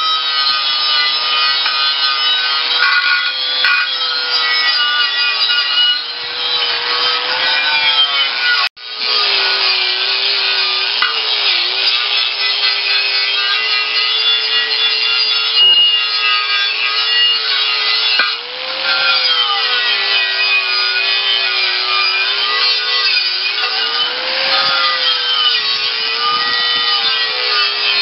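Angle grinder sanding rust off a steel tractor wheel rim: a steady motor whine whose pitch sags and wavers as the disc is pressed into the metal, over a harsh grinding hiss. It breaks off for a split second about nine seconds in.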